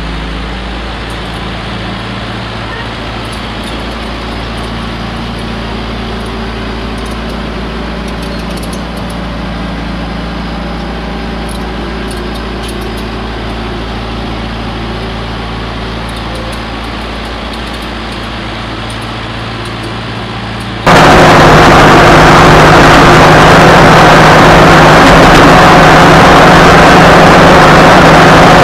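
John Deere 450C crawler dozer's diesel engine running steadily while the machine is driven, a test of whether its freshly adjusted clutch now takes up the drive. About 21 seconds in the sound cuts to a much louder, harsher version of the engine, as heard close up on the machine.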